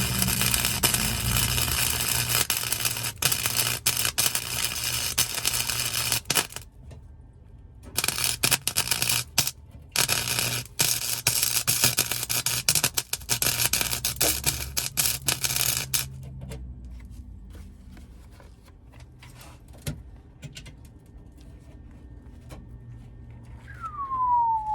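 Arc welding on a car's sheet-steel floor pan: the arc crackles loudly and steadily for about six seconds, stops briefly, then runs again for about eight seconds, over a low hum from the welder. After that there are only faint scattered ticks.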